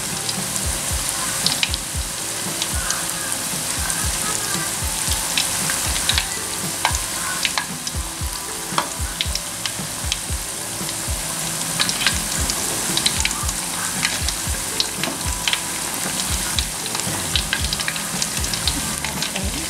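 Peyek batter with wet anchovies deep-frying in hot oil in an aluminium wok: a steady sizzle full of small pops and crackles. A plastic slotted spatula scrapes and knocks against the wok as it lifts the fritters' edges so they don't stick.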